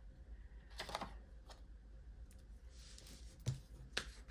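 Oracle cards being handled and set down on a desk: a few light taps, about a second in and twice near the end, with a soft rustle of card in between.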